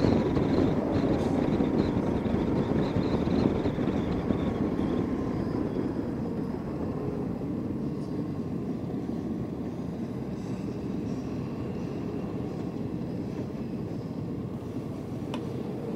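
Motorcycle engine and wind noise from the rider's own bike, easing off gradually as the bike slows down.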